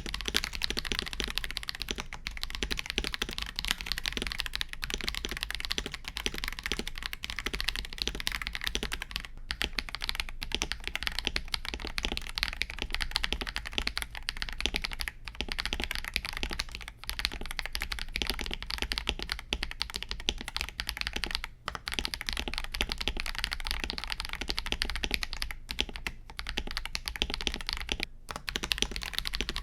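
Fast, steady typing on a KBD67 Lite R3 mechanical keyboard with light-sprung Akko CS Vintage White switches: a dense run of keystroke clacks, broken by short pauses every few seconds.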